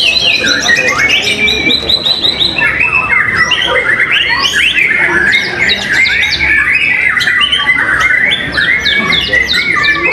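White-rumped shama song: a near-continuous run of fast trills, whistles and chattering phrases, with no pause.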